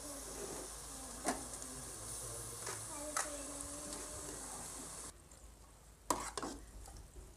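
Potato and aubergine curry sizzling and steaming in an aluminium pot on a gas burner, a steady hiss with a few light knocks of a spoon against the pot. The hiss cuts off about five seconds in, and a ladle then knocks and scrapes in the pot as the curry is served onto a plate.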